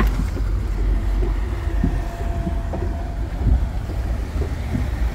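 Steady low rumble of passing motorboat water taxis and their churning wake, with wind buffeting the microphone.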